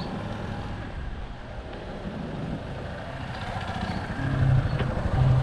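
A motor vehicle engine running, with a steady low pulsing that grows louder and steadier about four seconds in.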